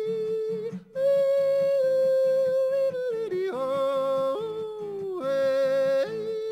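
Music: a solo voice singing long held notes that slide up and down between pitches, over a low, evenly pulsing accompaniment.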